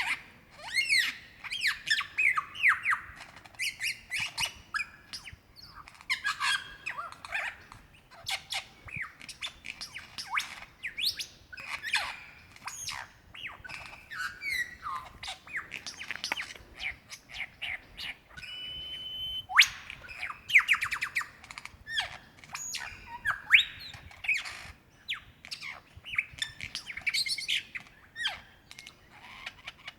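Male superb lyrebird singing a rapid, unbroken medley of mimicked calls: quick sweeping whistles, sharp clicks and chattering notes, with one held steady whistle just before a sharp upward sweep about two-thirds of the way in.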